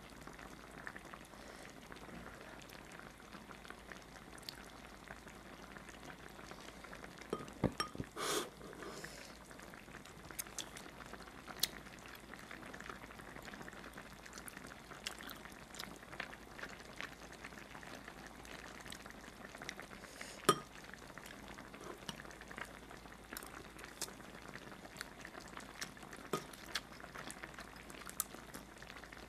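Spicy braised mackerel stew bubbling gently in a wide pot, with scattered light clicks of chopsticks against the pot. There is a brief louder stir about a quarter of the way in and a sharp knock about two-thirds through.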